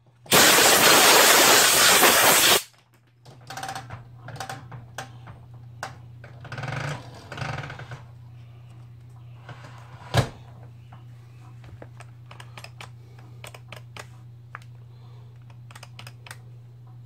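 Compressed-air blow gun blasting into the chainsaw's housing with a loud steady hiss that cuts off about two and a half seconds in. Then light clicks and rattles of plastic parts being handled, one sharp click about ten seconds in, over a steady low hum.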